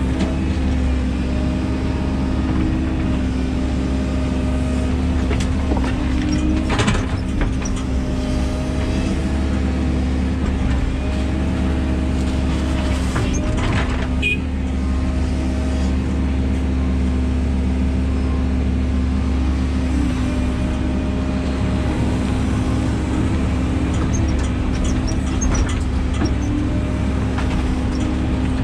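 Excavator's diesel engine and hydraulics running steadily, heard from the operator's cab. Twice, around 7 and 14 seconds in, there is a short clatter as the bucket tips a load of soil into a tipper lorry.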